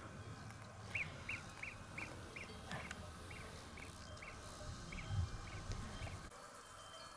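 An animal calling in a quick series of short, high notes, about three a second, over a low rumble that cuts off near the end, with a low thump about five seconds in.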